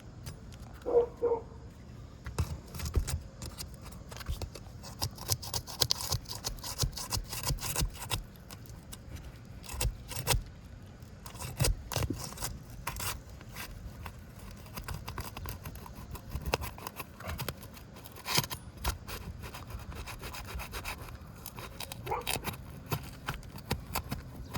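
A steel straight bar scraping and prying under asphalt roof shingles, with irregular scratching, clicks and knocks as the shingles are worked loose.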